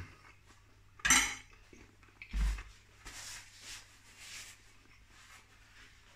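Cutlery and dish sounds: a sharp clink about a second in and a dull knock a little over a second later. Then soft rustling as a paper towel is wiped across the mouth.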